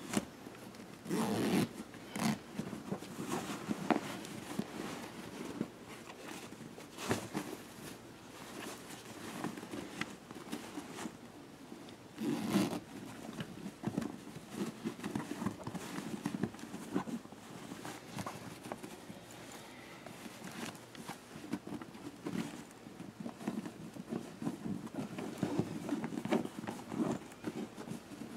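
A mermaid snake tail and its skin being handled, giving irregular rustling, scraping and light knocks. The handling is louder about a second in and again about twelve seconds in.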